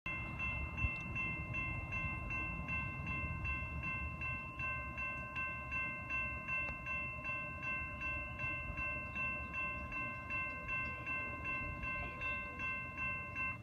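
Railroad grade-crossing warning bell ringing rapidly and evenly, about two to three strokes a second, as the crossing gate lowers. It signals an approaching train. It stops near the end.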